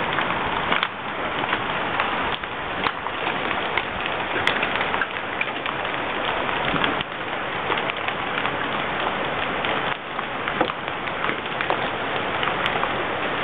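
Hailstones of mostly nickel to quarter size pelting down in a heavy, steady hiss of many small impacts, with a few sharper single cracks standing out now and then.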